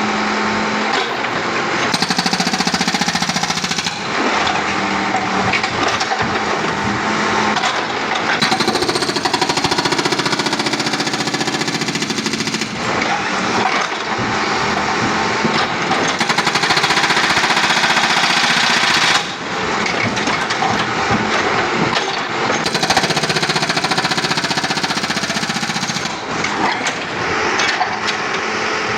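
Backhoe-mounted hydraulic breaker hammering a 5-inch concrete slab in rapid, continuous blows, over the backhoe's running engine. The hammering swells and eases in spells of a few seconds each.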